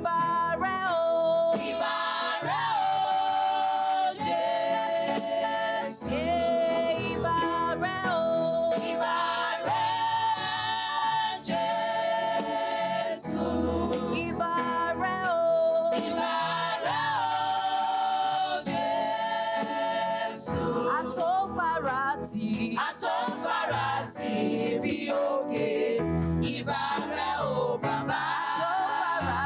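Women's choir singing a gospel worship song in harmony, with long held notes.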